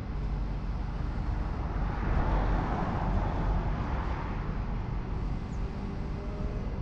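A passing vehicle's noise swelling up about two seconds in and fading away a couple of seconds later, over a steady low rumble.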